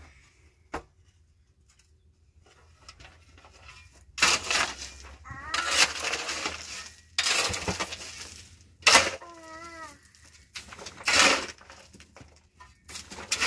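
A steel shovel scraping into gravelly soil and tossing the stones, in a string of gritty scrapes and rattles that begin about four seconds in, with separate strokes around nine, eleven and thirteen seconds.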